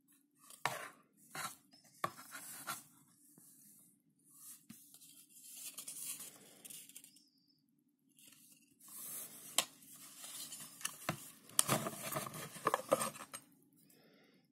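Handling noises from a knife in a leather sheath and its paper tag being moved about in a cardboard box: scattered rustles, rubs and small knocks over a faint steady low hum. The loudest, busiest stretch of rubbing and clicking comes near the end, as the knife is drawn out of its leather sheath.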